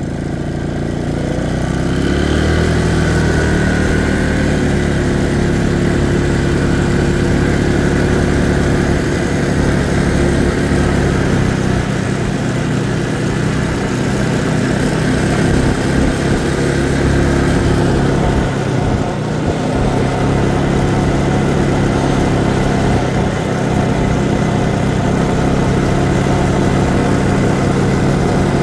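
Small ATV engine running under way. It picks up over the first two or three seconds, then holds a steady pace for the rest.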